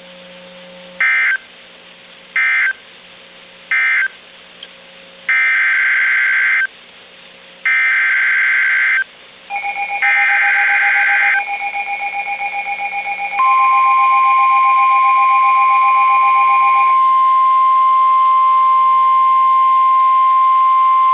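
NOAA Weather Radio emergency alert signalling. Three short warbling digital data bursts close the previous message, then three longer data bursts open the next warning, and then the steady single-pitch 1050 Hz weather radio warning tone sounds. A harsher buzzing alarm tone overlaps the second set of bursts and the start of the warning tone.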